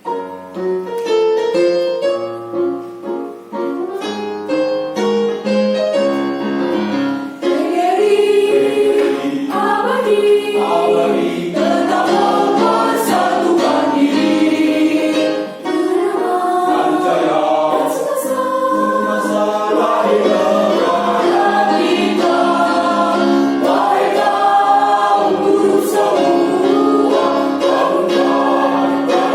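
A choir singing a competition piece in several parts, starting lighter and with shorter notes, then growing fuller and louder after about seven seconds.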